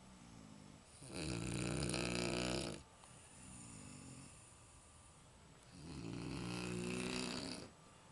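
A person snoring heavily in sleep: two long, loud, rasping snores about five seconds apart, with quieter breaths between them.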